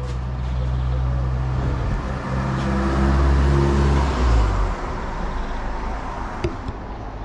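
A car engine running as it passes along the street, rising to its loudest about three to four seconds in and then falling away. A single short click comes near the end.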